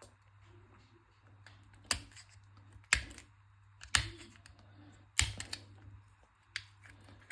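Sharp clicks and taps of small plastic and metal parts being pried and pulled out of a counterfeit AirPods charging case, including its small magnets. There are about five loud clicks, a second or so apart, over a faint low hum.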